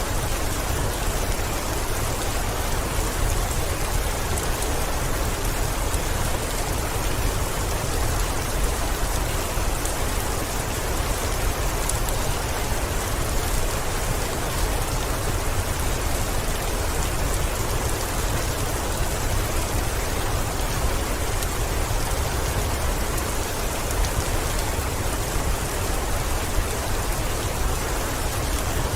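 Heavy rain falling on a window: a steady, dense hiss of drops with a low rumble underneath, unbroken throughout.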